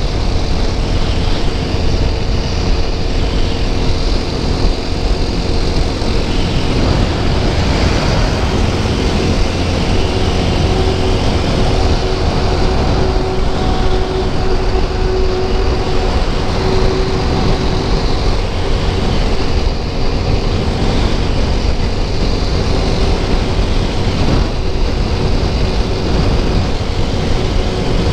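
TVS Apache RTR 200 4V's single-cylinder engine running steadily at highway cruising speed, mixed with heavy low wind rumble on the rider's camera microphone.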